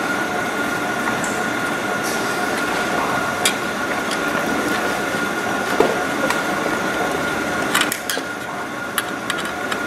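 Steady mechanical hum and hiss with a thin, constant whine, with a few sharp clicks of small metal parts as hands work the guard's screws.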